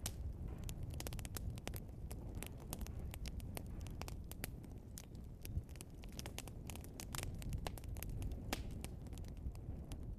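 Burning logs crackling and popping irregularly over a steady low rumble of the fire.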